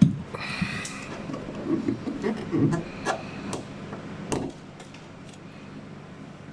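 A sharp knock, then a run of irregular knocks, clicks and rubbing from parts and tools being handled during car repair work, stopping about four and a half seconds in.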